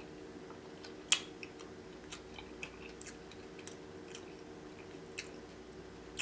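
Close-miked chewing of snow crab meat: soft wet mouth clicks and smacks scattered through, the sharpest about a second in.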